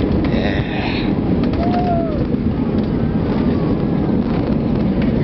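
Cabin noise of an Airbus A320 with IAE V2527 engines touching down and rolling out on the runway, heard from a window seat: a loud, steady rumble of the wheels, airflow and engines, with a brief rattle about half a second in. The ground spoilers rise on the wing, the sign that the main wheels are on the ground.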